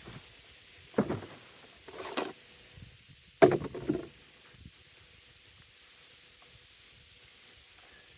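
McCulloch chainsaw's recoil starter cord yanked three times, about a second apart, the last pull the loudest; the engine does not fire and no running sound follows.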